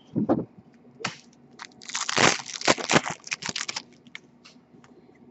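Foil wrapper of a hockey card pack crinkling and tearing as it is opened and the cards pulled out: a short burst of crackling about a second in, then a longer, denser stretch of crinkling from about two seconds to nearly four.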